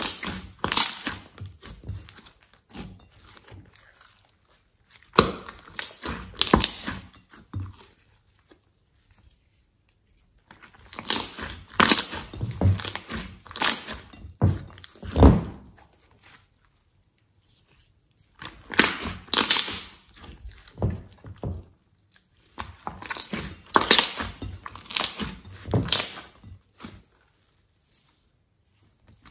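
Hands squeezing, pressing and stretching thick green slime in a glass bowl, making bursts of quick sticky clicks and squelches, with short silent pauses between the handfuls.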